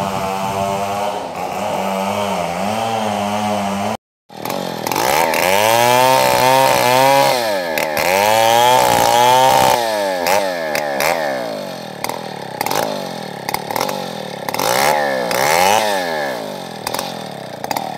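Chainsaw engine running at a steady speed, then, after a brief dropout about four seconds in, revving up and down again and again as it cuts into a tree trunk.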